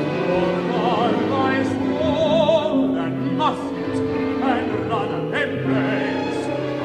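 Modern orchestral music: sustained orchestral chords with an operatic voice singing in wide vibrato, and a few quick sliding notes about halfway through.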